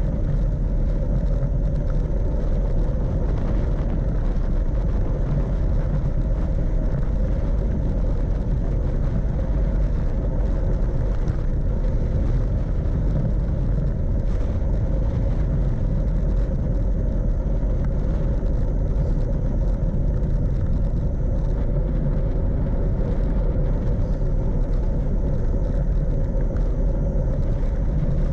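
Steady wind rumble over an action camera's microphone during a fast downhill ride on a Brompton folding bike, mixed with the rolling noise of its tyres on asphalt.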